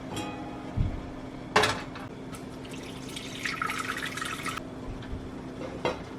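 Kitchen work sounds: a thump, then a sharp clatter about a second and a half in, then water running for about a second before cutting off sharply, and a click near the end, over a steady low hum.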